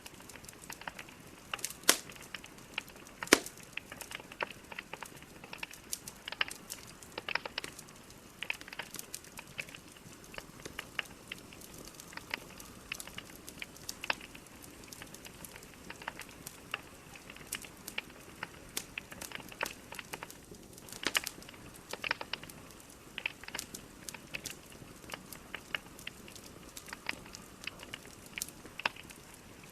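Wood logs burning in a fireplace: steady soft hiss with irregular crackles and sharp pops, the loudest pops about two and three seconds in.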